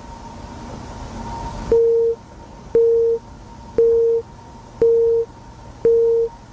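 Static hiss that stops about a second and a half in. Then a telephone busy-signal tone: a single low beep about half a second long, repeating roughly once a second, five times, each beep starting with a click.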